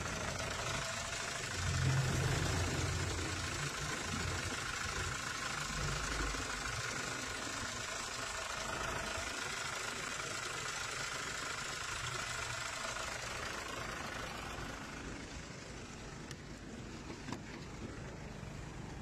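Hyundai Grand Starex's D4CB common-rail diesel engine idling steadily, with a faint steady whine over it that fades out about fifteen seconds in.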